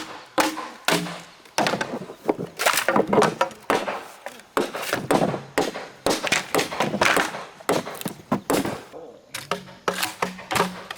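A rapid, irregular series of knocks and chopping blows, several a second, in a working rhythm without pause.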